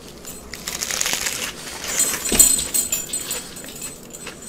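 Loud, close-miked chewing of a lettuce-wrapped cheeseburger slider, with irregular crackling and a sharp click a little over two seconds in.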